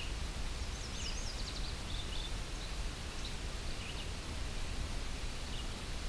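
Steady outdoor background noise with a low rumble, and faint short chirps of small birds at intervals.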